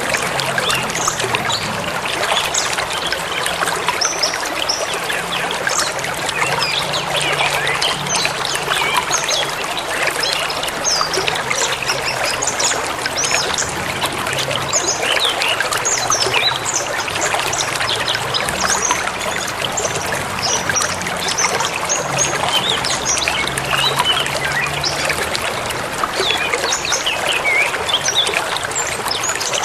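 A forest river flowing steadily, with many birds chirping in short, quick calls over the water throughout.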